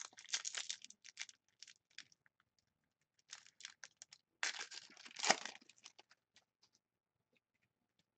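Crinkly wrapper of a Panini Contenders hockey card pack being torn open and crumpled in three bursts, the loudest a little past the middle, then light clicks and flicks as the cards are handled, dying away about two seconds before the end.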